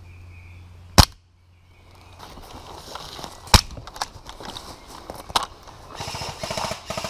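Airsoft gunfire: three loud, sharp cracks about two seconds apart, then a short, fast rattling burst near the end.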